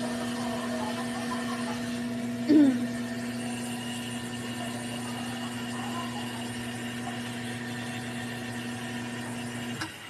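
Electrolux top-load automatic washing machine running on test with a steady electrical motor hum, which stops just before the end. About two and a half seconds in there is a brief, louder sound whose pitch quickly rises and falls.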